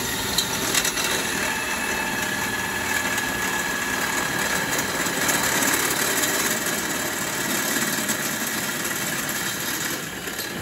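Electric drill running steadily under load, boring a hole through the outrigger's runner rail and riser, with a faint steady whine over the grinding of the bit.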